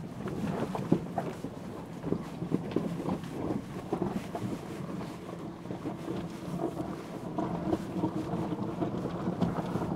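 Rivian R1T electric pickup crawling over a rocky dirt trail: its tyres crunching on gravel and stones with many small irregular clicks and knocks, over a steady low hum.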